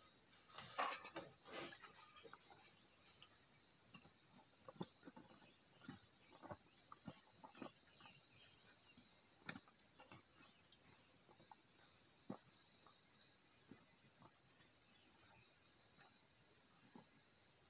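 Faint, steady insect chirping: a constant high drone with a pulsing trill over it. Scattered soft clicks and rustles come from hands picking food off a banana leaf.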